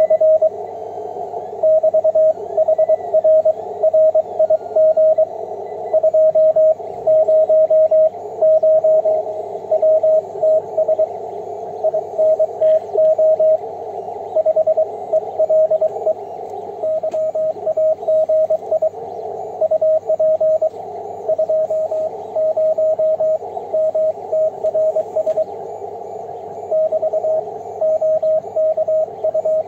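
Morse code (CW) on the 28 MHz amateur band, heard from a Yaesu HF transceiver's speaker: a steady mid-pitched beep keyed on and off in dots and dashes over constant receiver hiss.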